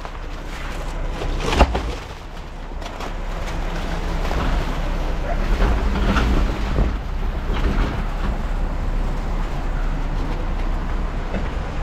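Front-load garbage truck's diesel engine running steadily, growing louder about four seconds in, with one sharp knock about a second and a half in.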